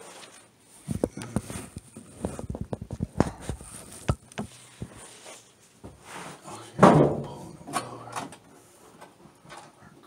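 Sheet-metal furnace panels being handled: a run of small knocks and rattles, then one louder bang about seven seconds in and a few more clicks.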